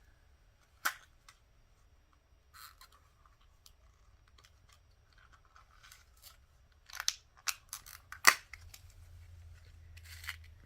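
Bead supplies being handled while searching for a small spacer bead: scattered sharp clicks and short rustles, with a quick run of clicks near the end, the loudest about eight seconds in.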